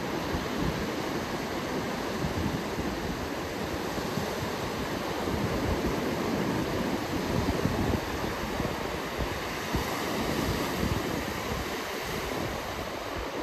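North Sea surf rushing steadily onto the beach, mixed with strong wind buffeting the microphone in gusts.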